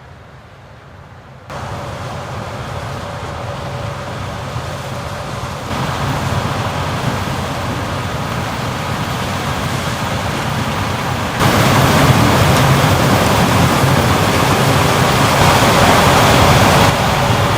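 Heavy harvest machinery working in a corn field: a dense, steady mechanical noise with a faint steady whine through it. It jumps louder abruptly about a second and a half in and again about two-thirds of the way through, then drops back a little near the end.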